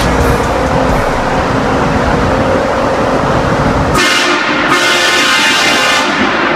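HornBlasters air train horn on a pickup truck sounding one long, loud chord of several steady tones, starting suddenly about four seconds in after a steady rushing noise.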